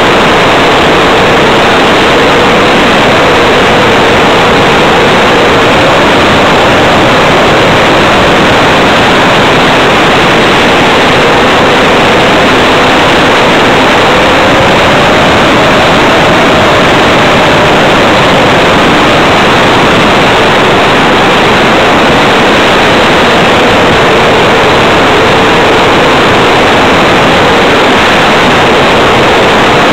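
Onboard sound of an RC Tiger Moth model biplane in flight: loud, steady wind rush over the camera with the motor and propeller drone underneath, its pitch drifting slightly up and down.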